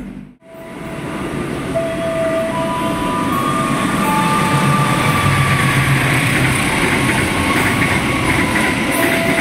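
Freight train hauled by a KAI diesel locomotive passing through at speed. The engine and wheel noise grows louder over the first few seconds as the locomotive comes by. Then the container and tank wagons rumble and clatter past steadily over the rails, with a few thin high tones.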